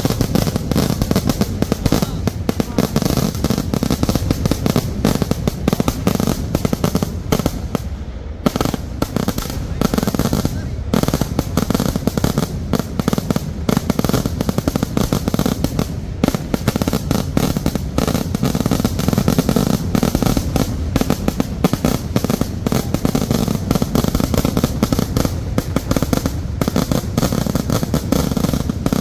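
Kerala vedikettu fireworks going off in a fast, unbroken barrage of bangs and crackle, with brief thinner moments about eight and eleven seconds in.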